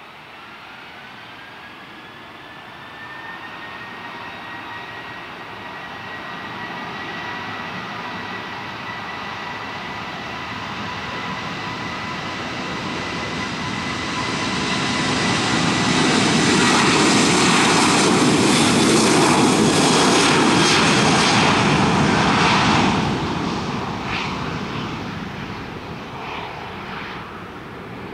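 A Boeing 737's twin turbofan engines spooling up to takeoff thrust, their whine rising in pitch and then holding steady. The roar of the takeoff roll builds to its loudest as the jet passes close by, then fades quickly as it lifts off.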